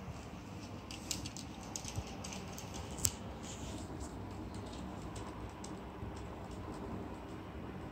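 Chihuahua's claws clicking on a hard wooden floor as it walks about: an irregular run of light ticks, densest in the first few seconds with one sharper tick about three seconds in, then fainter.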